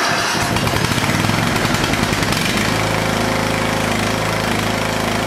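Lawn tractor engine that has just fired up, running loud and rough for about two seconds before settling into a steady run.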